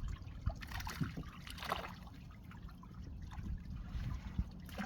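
Water splashing and lapping, with scattered light knocks and clicks.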